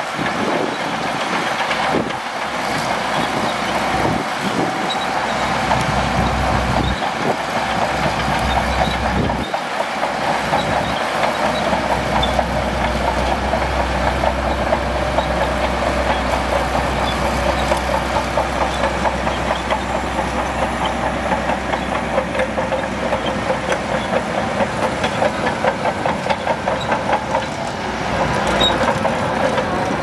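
Shantui DH17C2 crawler bulldozer working in sand: its diesel engine runs under load, with the steel tracks making a rapid rhythmic clatter throughout. A deeper engine rumble grows about seven seconds in.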